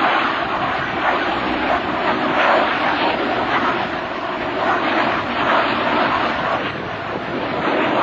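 F/A-18F Super Hornet's twin turbofans and F4U Corsair's piston engine heard together as the two aircraft fly in formation: a steady rushing engine noise that swells and eases slightly, with no distinct tones.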